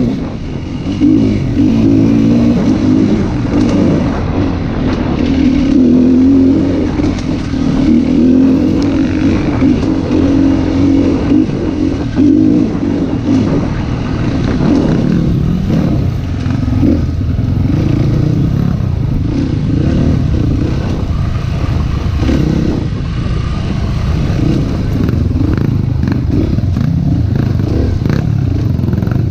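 Dirt bike engine heard close from on board as the bike is ridden off-road, its revs rising and falling with the throttle, with knocks and rattles as it rides over rough ground.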